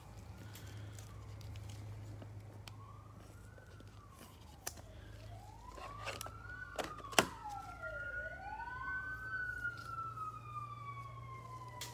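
Distant emergency-vehicle siren wailing, its pitch sweeping slowly up and down, then holding a long high tone that slowly falls near the end. A few sharp clicks come through over it.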